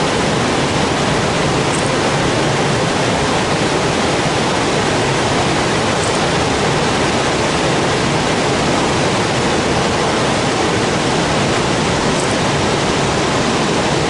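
Iguazú Falls: a large waterfall's falling water making a loud, steady, unbroken rush.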